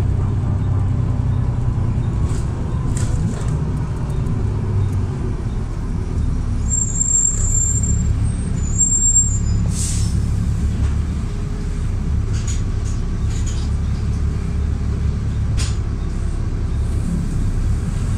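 Bus engine running with a steady low rumble, heard from inside the passenger saloon as the bus moves slowly, with scattered rattles and clicks from the body. A brief high squeal comes about seven to nine seconds in, and a short hiss of air about ten seconds in.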